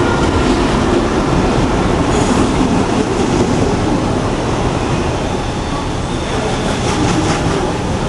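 A DF11 diesel locomotive going by, then its train of passenger coaches rolling past: a loud, steady rumble of wheels on rail with clicking over the rail joints. It eases off slightly in the second half.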